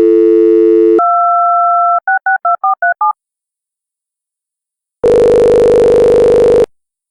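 Telephone call sounds: a steady dial tone, then a one-second beep, then seven quick touch-tone key presses as a number is dialed. After a pause of about two seconds, one ringing tone sounds for under two seconds while the call connects.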